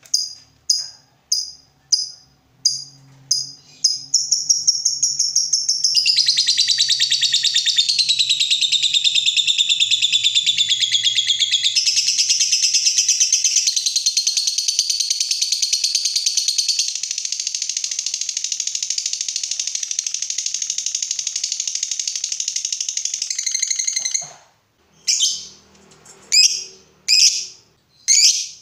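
Lovebird calling: a few short shrill chirps, then a long unbroken high chattering trill, the prized 'ngekek panjang', lasting about twenty seconds. It breaks off into separate chirps about once a second near the end.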